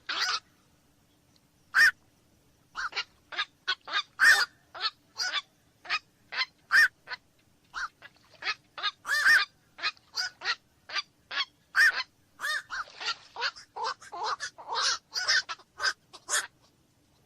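Night herons (koak malam) giving short calls over and over at uneven intervals, often two or three a second. The calls come denser and overlapping in the second half, as from more than one bird.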